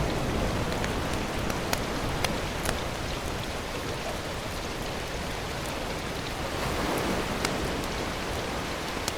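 A steady rain-like hiss, with a few scattered sharp clicks.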